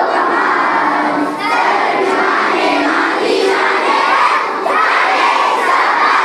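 A crowd of children shouting together loudly, in repeated phrases that break off about once a second.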